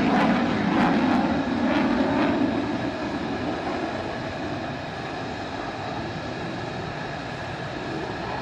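Jet aircraft engines running on the flight line: a steady rushing noise with a high turbine whine, louder for the first two or three seconds and then settling to an even level.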